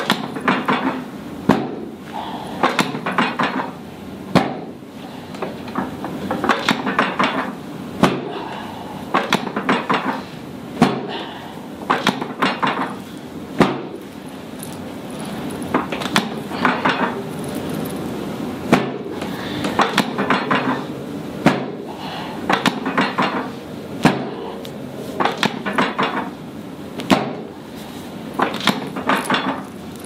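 Chiropractic drop table's thoracic section snapping down under repeated hand thrusts, a sharp clack about every second and a half, some followed by a short clatter. These are drop adjustments on the right side of the rib cage to rotate it back toward level in a scoliotic spine.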